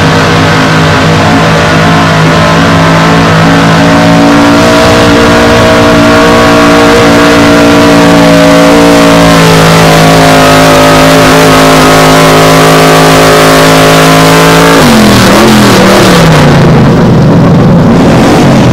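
Chevrolet pickup's small-block V8 running loud and held at a steady high rev under load as it drags a weight-transfer sled. About fifteen seconds in the revs fall away and waver.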